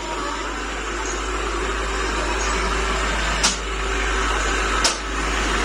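Machine tool running with a steady whirring hum, with two sharp clicks about a second and a half apart in the second half.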